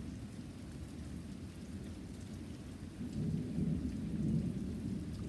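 Heavy rain pouring steadily, with a low roll of thunder that swells about three seconds in.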